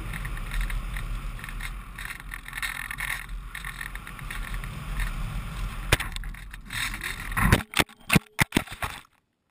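Steady rushing and low rumble of air buffeting the onboard GoPro HERO 2's microphone on a radio-controlled glider, then a quick series of sharp knocks from about seven and a half seconds in before the sound cuts off abruptly.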